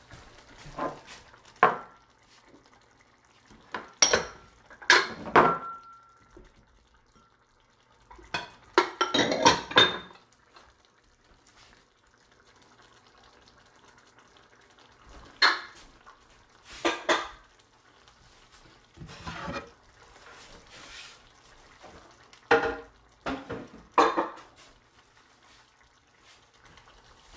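Intermittent clatter of kitchen dishes, pots and utensils being handled and set down, in scattered knocks and short bursts with quiet gaps between. One knock about five seconds in leaves a brief metallic ring.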